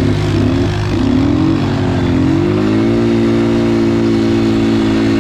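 Quad bike (ATV) engine running, its pitch wavering up and down for the first couple of seconds, then rising about two and a half seconds in and holding steady at higher revs.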